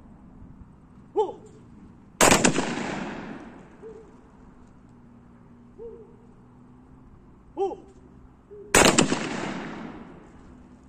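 Two shotgun shots from a break-action shotgun, about six and a half seconds apart, each ringing out with a long echoing tail. A short shout comes about a second before each shot.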